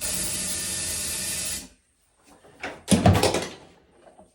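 Compressed air hissing steadily as it is blown into an emptied motorcycle fuel tank to clean it, cutting off about a second and a half in. Then a few knocks and clatter, the loudest about three seconds in.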